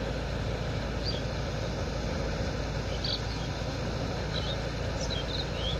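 Kubota MU5502 tractor's diesel engine running steadily at a distance as it drives a rotavator through a flooded paddy, with a few short, high bird chirps scattered over it.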